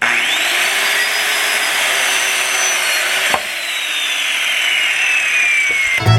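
Electric power saw cutting through a 2x6 board: the motor's whine rises as the blade spins up, then falls slowly as the blade loads in the cut. A single knock a little over three seconds in.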